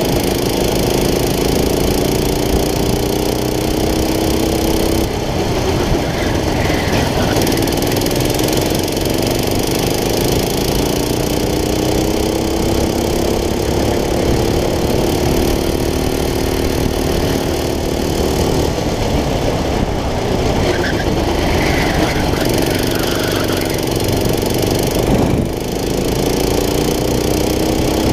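Go-kart engine at high revs heard from on board, its pitch climbing slowly as the kart accelerates and dropping sharply when the throttle is lifted for corners, about five seconds in, about two-thirds of the way through, and briefly near the end.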